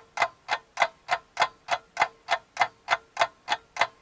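Regular, sharp ticking, about three ticks a second.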